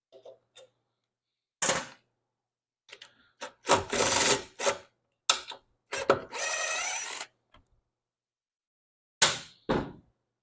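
Metal tools and engine parts clicking and clattering as the bolts holding a push mower's gas tank are taken out and the tank is worked loose, with a short whir about six seconds in.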